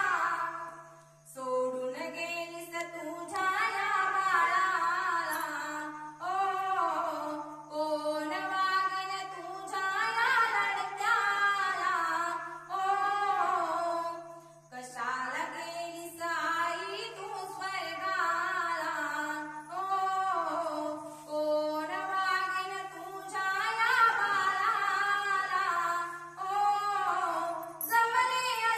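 A woman singing a slow Marathi song solo with no instruments, into a microphone, in long sung phrases with short breaks between them. A faint steady low hum runs underneath.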